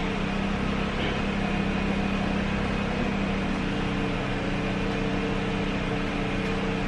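A steady mechanical hum of a running motor or fan, with a low, even drone that does not change.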